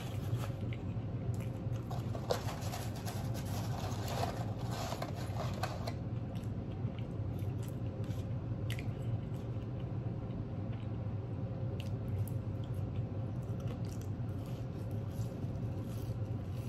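Close-up chewing and mouth sounds of someone eating fast food, busiest in the first several seconds and then sparser, over a steady low hum.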